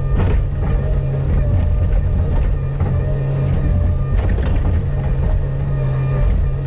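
Bobcat 145 excavator's diesel engine running steadily under load while its ripper tooth tears through frozen ground, with scattered knocks and scrapes, the clearest near the start and a little past the middle.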